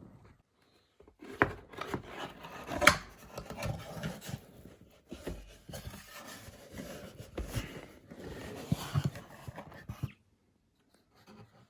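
Keyboard box and its packaging being handled: an uneven run of rubbing, scraping and light knocks, with a sharp click about three seconds in, stopping abruptly about ten seconds in.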